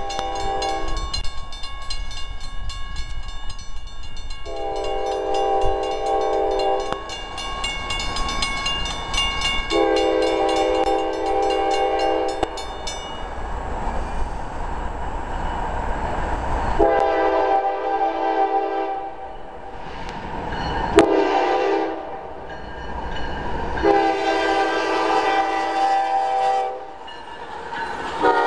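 Union Pacific diesel locomotive's air horn sounding a series of long blasts and one short blast as the freight train approaches the grade crossing. Through the first half the crossing signal bell rings rapidly and steadily.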